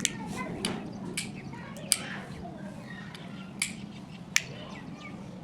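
Two-way light switches being flipped, about six sharp clicks at uneven intervals over a steady low hum.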